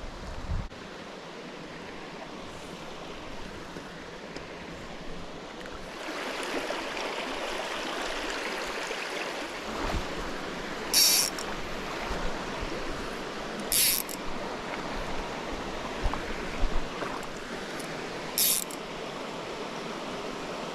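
Small stream running steadily over riffles, louder from about six seconds in, with three short, sharp high-pitched noises near the middle and end.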